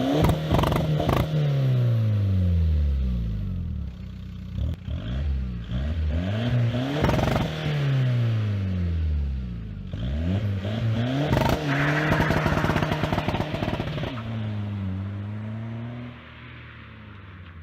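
Car engine revved hard about three times up to its popcorn-style rev limiter, which chops fuel many times a second and gives rapid pop-pop-pop crackling at each peak before the revs fall away. A smaller rev blip follows near the end.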